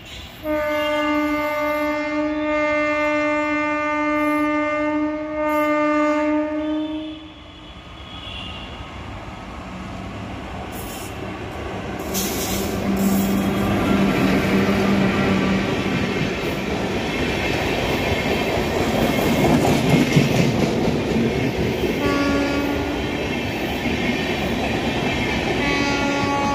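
Indian Railways WAP-4 electric locomotive sounding one long horn for about seven seconds as it approaches, then the express passing close by at speed with the clickety-clack of its wheels over the rail joints, growing louder as the coaches go by. The horn sounds again briefly about 22 seconds in and once more near the end.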